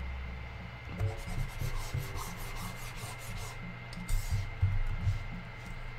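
Rubbing and irregular soft knocks of a hand sliding a pointing device across a desk, with a faint steady high-pitched whine.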